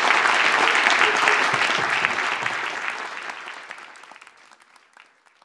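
Audience applauding, a dense patter of clapping that fades away over the last few seconds.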